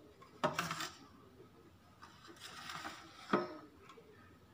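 Light knocks and a soft scrape as a toy school building is handled and shifted on a glass tabletop: one knock about half a second in, a brief scraping rustle, then a sharper knock near three and a half seconds.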